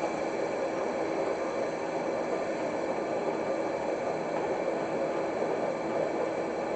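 Doall C-4 horizontal band saw running under power, a steady whir with a hum of several fixed tones from the motor, pulleys and moving blade. A sharp click at the very end is the switch that shuts the saw off as the head reaches the bottom.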